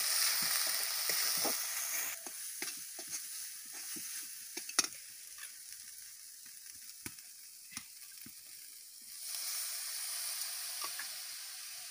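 Onion, raw mango and ground spices sizzling in oil in a wok, stirred with a metal spatula. The sizzle is loud for the first two seconds, drops low, and comes back about nine seconds in, with scattered light clicks and one sharp knock about five seconds in.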